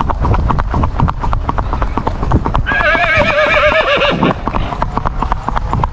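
A horse's hooves clicking rapidly and evenly on an asphalt road at a smooth, quick-stepping gait. A whinny with a wavering pitch cuts across the hoofbeats for about a second and a half, starting near the middle.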